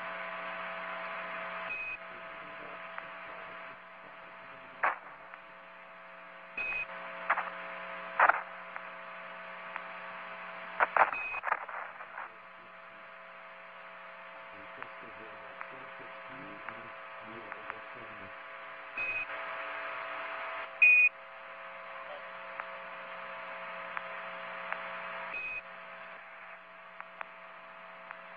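Space-to-ground radio link hissing and humming, with several short high beeps, sharp clicks and faint, garbled radio voice traffic.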